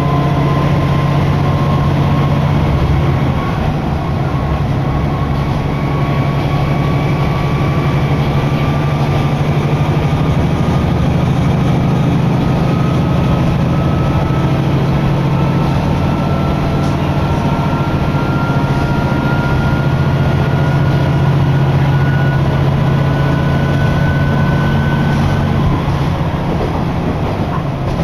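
Kantō Railway Jōsō Line diesel railcar running, heard from inside the passenger cabin: a steady low engine drone with a thin whine that climbs slowly in pitch and stops near the end.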